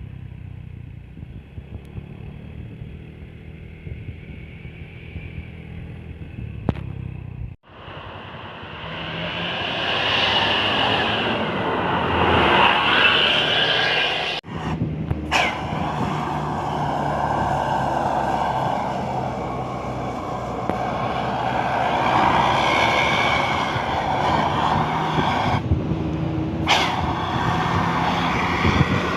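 Road vehicle engine running with road noise, growing much louder after about eight seconds. The sound cuts out abruptly a few times along the way.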